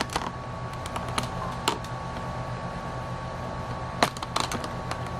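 Steady background hum with a faint steady high tone, broken by a single light click about a third of the way in and a short cluster of clicks near the end.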